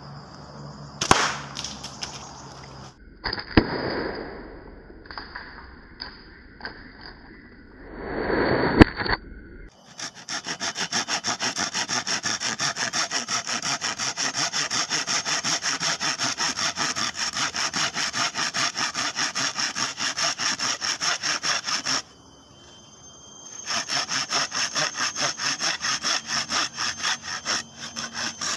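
Hand saw cutting through a bamboo pole in quick, even strokes, about four a second, with a short pause in the middle of the cut. Before the sawing starts there are a few sharp cracks and knocks.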